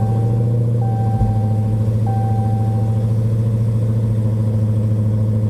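Supercharged 6.2-litre HEMI V8 of a 2015 Dodge Challenger SRT Hellcat idling steadily just after start-up. A dashboard warning chime repeats, a clear beep about every second and a quarter, and stops about three seconds in.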